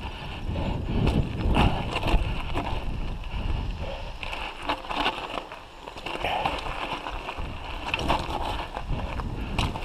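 Mountain bike rolling down a rocky gravel singletrack: tyres crunching over loose stones, with frequent irregular rattles and knocks from the bike over bumps.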